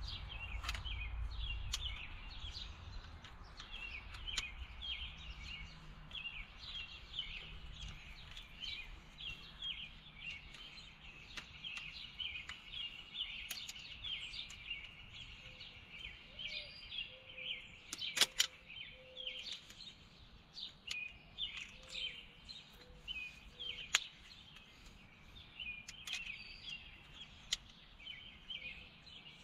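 Small birds chirping and singing in a steady chorus, with a few sharp clicks of hand tools on metal, the loudest about 18 seconds in.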